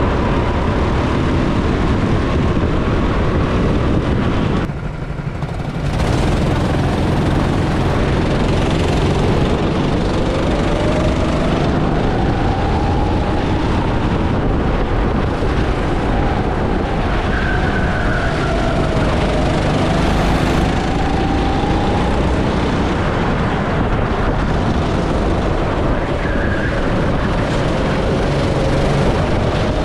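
Go-kart engines running at racing speed, their pitch rising and falling with acceleration and braking, under a heavy rush of noise. About five seconds in the sound dips briefly, then the engines pull away again at the race start.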